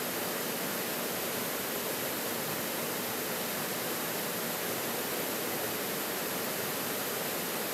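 Steady rush of a small waterfall pouring into a rocky pool, an even splashing hiss with no breaks.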